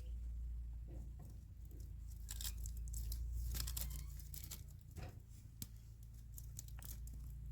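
Irregular crackling and rustling, many small sharp crackles, over a steady low rumble.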